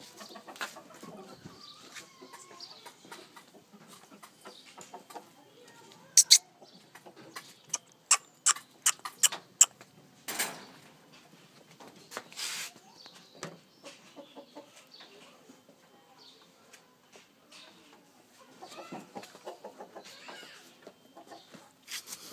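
Aseel chickens clucking, with a run of sharp clicks and knocks in the middle that are louder than the clucking.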